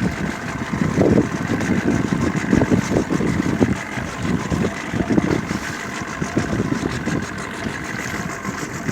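A fishing boat's motor running steadily at trolling speed.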